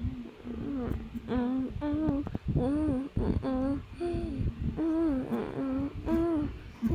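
A person humming a wordless tune in short notes that each rise and fall, about two a second, with a few soft knocks in between.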